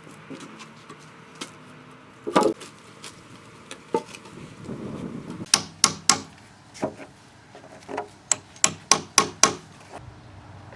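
Sharp knocks of wood on wood as heavy 200 by 50 macrocarpa timber boards are positioned and fitted together. A scraping slide comes about halfway through, and a quick run of knocks near the end.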